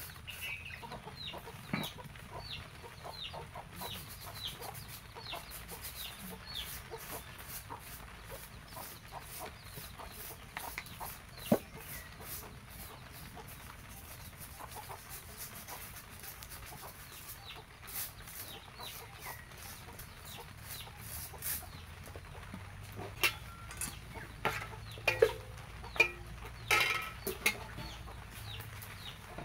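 Chickens clucking, with a run of short high chirps in the first few seconds. Several sharp clinks and knocks of cookware near the end, the loudest sounds, as the iron griddle and aluminium pot are handled.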